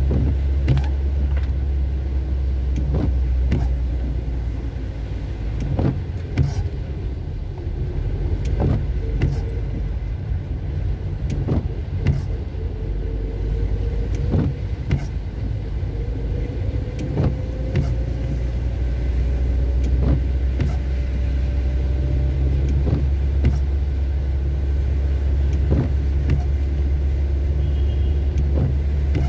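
Car driving on a rain-soaked road, heard from inside the cabin: a steady low rumble of engine and tyres on wet asphalt, with irregular sharp ticks of rain on the windscreen. A faint whine rises slowly through the middle.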